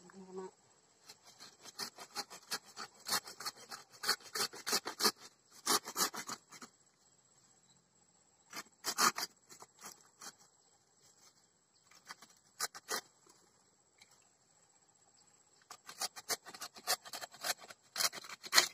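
A machete chopping into earth and roots in quick runs of strikes with short pauses, cutting a tree stump free. A steady high insect buzz carries on behind.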